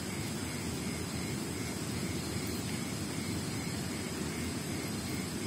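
River water rushing steadily, a dense low rumble. Faint steady high tones and a soft chirp repeating about twice a second sit above it.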